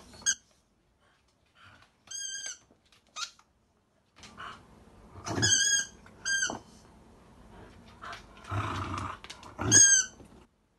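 A corgi playing with a small toy ball: five short, high-pitched squeaks at irregular intervals, with a brief low rumbling noise just before the last one.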